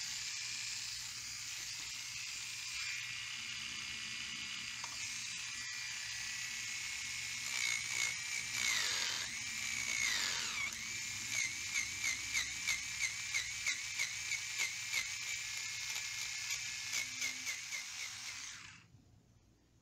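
Small electric manicure and pedicure file spinning a sapphire disc against the plastic mirror base, grinding off old dried glue. Its high whine wavers in pitch as it is pressed on, pulses about three times a second in the second half, and cuts off near the end.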